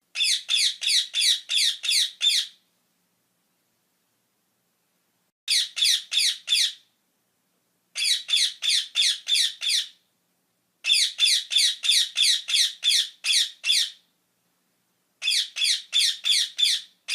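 Parrot calling in bouts of rapid, harsh squawks, about three or four a second, each note falling in pitch. Five bouts of one to three seconds each are separated by silent gaps.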